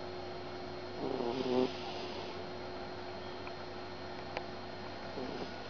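A sleeping cat snoring: one snore lasting about half a second, about a second in, and a fainter breath near the end.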